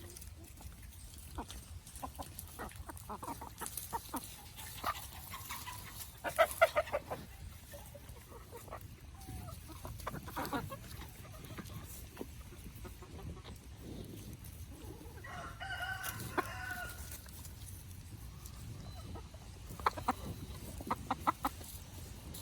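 Chickens clucking and calling in short pulsed bursts, loudest about a quarter of the way in and again near the end, with one longer drawn-out call about two-thirds through, over faint scattered clicks.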